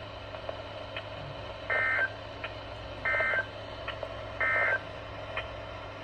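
Weather radio receiver sounding the Emergency Alert System end-of-message signal: three short bursts of warbling data tones, each about a third of a second long and about 1.3 seconds apart, over a steady low hum.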